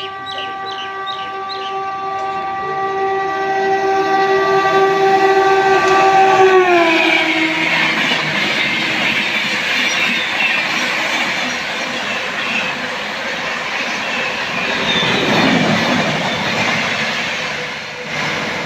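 Shatabdi Express passing at about 130 km/h: the locomotive's horn sounds a steady chord for several seconds, then drops sharply in pitch as the locomotive goes by. The rush and clickety-clack of the coaches passing at speed follow.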